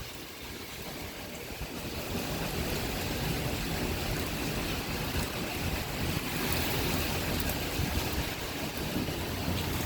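Typhoon wind and rain blowing hard against an apartment building, heard from indoors as a steady rushing that swells over the first couple of seconds and then holds.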